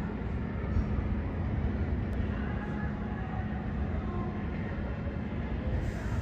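Steady, even outdoor background rumble, mostly low-pitched, with a faint steady hum and no distinct events.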